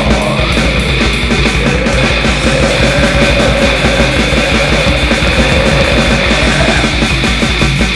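War metal song playing loud and dense, with rapid, evenly repeated drum hits.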